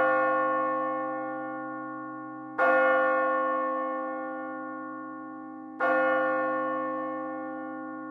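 A tower bell tolling the same note at a steady pace, struck about every three seconds. Each stroke rings on with a rich, long decay that is still sounding when the next stroke lands.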